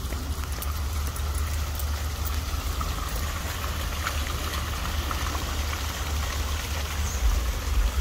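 Small waterfall and stream running over rocks: a steady rush and trickle of water, with a strong low rumble underneath throughout.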